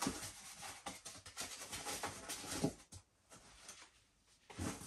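Rustling and scraping of a small cardboard box being handled and its flaps folded, with small knocks, stopping about three seconds in.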